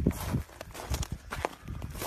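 Footsteps in snow, about four or five irregular steps.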